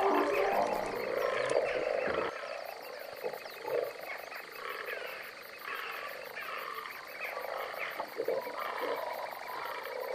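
Many frogs croaking together in a dense, continuous chorus, louder for the first two seconds.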